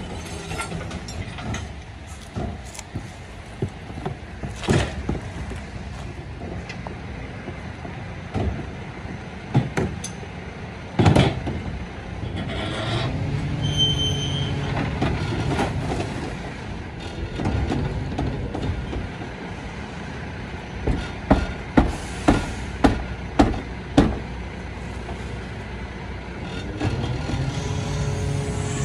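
Rear-loader garbage truck's engine and hydraulics running while its bin lifter raises and tips wheelie bins into the hopper, with scattered clunks and one loud bang near the middle. The engine speeds up twice as the lifter works, and a run of about six quick bangs about three quarters through comes from the bins being knocked empty against the lifter.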